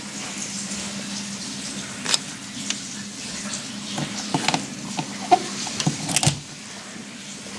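Whitfield pellet stove running as it is restarted: a steady low hum under a hiss, with scattered clicks and taps, the loudest a cluster about four to six seconds in.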